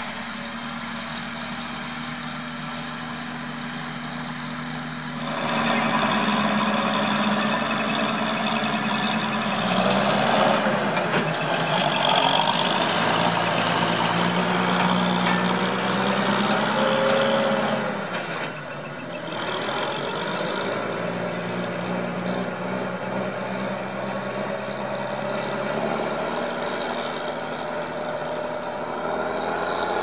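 Massey Ferguson 1200 articulated tractor's Perkins six-cylinder diesel engine running steadily as the tractor drives along. It gets louder about five seconds in, shifts up and down in pitch in the middle, and drops back after about eighteen seconds.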